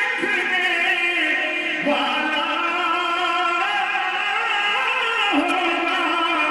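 A solo male voice reciting an Urdu naat into a microphone, holding long, wavering notes that shift pitch a couple of times.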